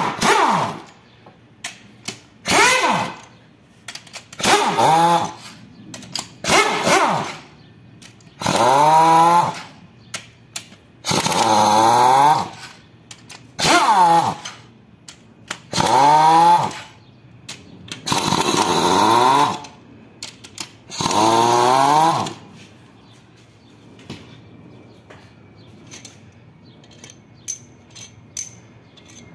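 Handheld power tool with a socket spinning out cylinder-head bolts: about ten short runs of a second or two each, the pitch rising and falling within each run. After the last run, light metallic clinks as the loosened bolts are handled.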